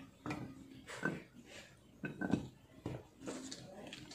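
Spice ingredients dropped by hand into a clear plastic food-chopper bowl and handled on the counter: a few light, scattered knocks and clatters.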